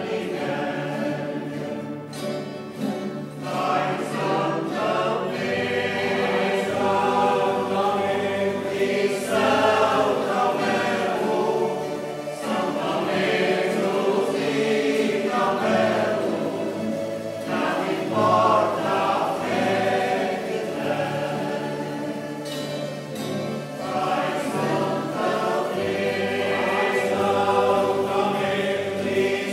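Music: a group of voices singing together in chorus with instrumental accompaniment.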